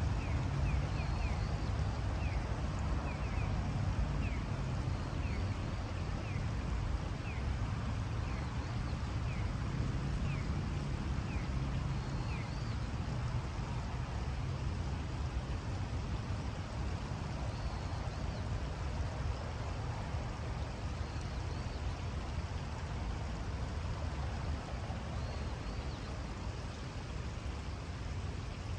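Riverside ambience: a steady rush of gently flowing river water under a low rumble, with a bird giving quick, falling chirps, several a second, over the first dozen seconds and a few higher calls later.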